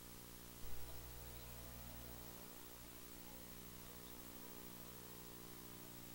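Steady electrical hum under a hiss, with a brief low thump just over half a second in.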